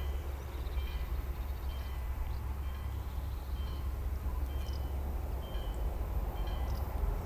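A Siemens Desiro MQ diesel multiple unit approaching from a distance, heard as a steady low rumble. Faint short high chirps repeat about once a second over it.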